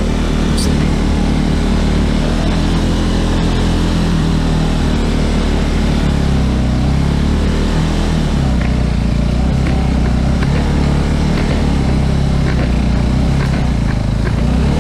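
Suzuki Gixxer motorcycle engine running steadily in first gear as the bike is ridden slowly along a trail.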